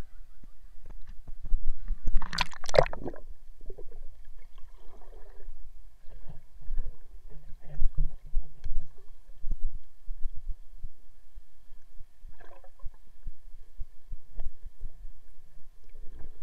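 Lake water sloshing and splashing against an action camera held at the surface, with a loud splash about two to three seconds in. This is followed by muffled underwater gurgling and scattered knocks and clicks as the camera is held submerged.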